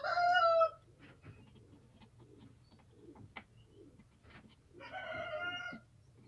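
A chicken calls twice, a short call at the start and a longer one about five seconds in. Between the calls come faint ticks and scrapes of a knife carving a kite-flute cap.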